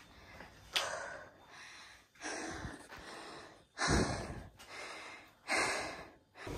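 A person breathing hard: four loud, noisy breaths about every one and a half to two seconds, with short pauses between them.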